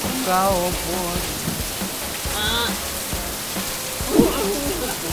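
Steady hiss of rain falling, with background music and brief voices over it.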